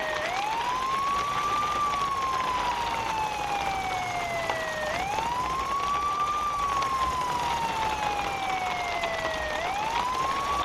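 Siren wailing: its pitch rises quickly, then falls slowly, three times over, with a steady hiss behind it.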